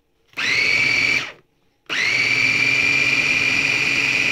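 Electric bowl chopper's motor whirring in two pulses as it mixes a thick cottage-cheese batter. The first pulse lasts about a second. The second starts about two seconds in and keeps running, its whine rising briefly to a steady pitch at each start.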